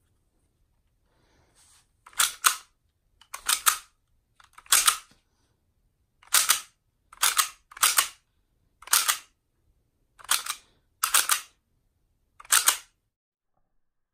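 Slide of a Glock-style airsoft pistol being racked one-handed about ten times, each rack a quick double or triple clack as the slide is pulled back and snapped forward.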